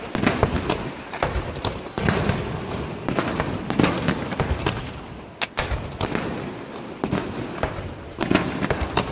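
Aerial firework shells bursting in quick succession during a display: many sharp bangs, often several a second, over a continuous crackle from overlapping bursts.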